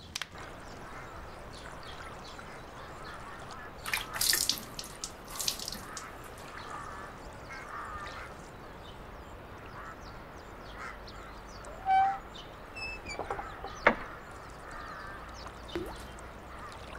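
Quiet outdoor ambience with occasional bird calls, including a short clear call about twelve seconds in. A few short noisy sounds come about four to six seconds in, and there is a single sharp click near the end.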